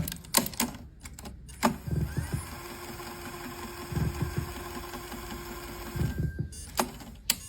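Sony Walkman WM-EX1 cassette mechanism: several sharp plastic clicks and clunks of its keys and transport engaging. A small motor runs steadily for about three and a half seconds in the middle, then more clicks near the end.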